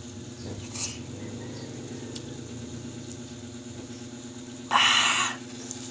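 A steady low motor hum runs under faint mouth and spoon sounds of someone eating a soft dessert. About five seconds in, a loud rushing burst lasts about half a second.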